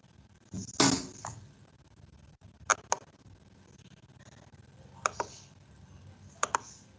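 A short noise about a second in, then three pairs of sharp clicks, the two clicks in each pair a fifth of a second apart, heard over an open microphone on a video call.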